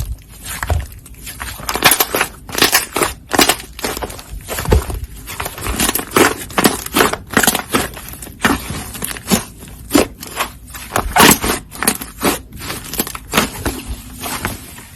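Slime being played with: a fast, irregular run of crackling clicks and pops.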